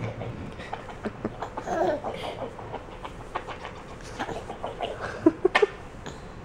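Baby giggling in short, scattered bursts, with a drawn-out laughing squeal about two seconds in and a few sharp, quick bursts of laughter a little after five seconds.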